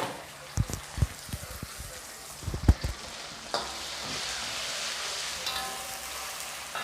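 Spatula stirring onions and ginger-garlic paste frying in oil in a pan: a run of sharp knocks against the pan over the first few seconds, then a steady sizzle.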